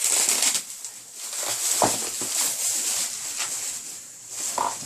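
Packaging being handled: crinkling and rustling, with small crackles and clicks throughout.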